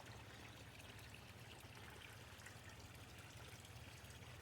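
Faint, steady trickle of water from a small garden pond's water feature, with a low steady hum underneath.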